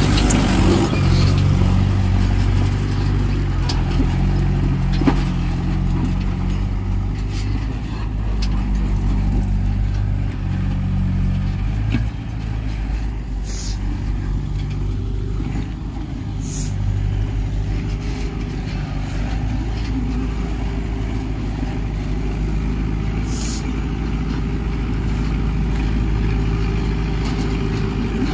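Farm tractor's diesel engine running steadily under load as it hauls a trolley loaded with sand, its note shifting about halfway through.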